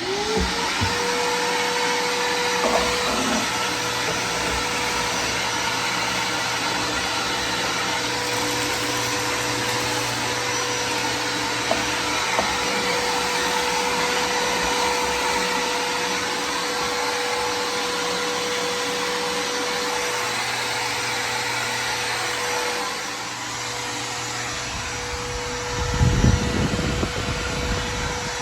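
Electric vacuum cleaner motor starting up with a quickly rising whine, then running steadily with a loud, even rush of air. A few seconds of low rumble come in near the end.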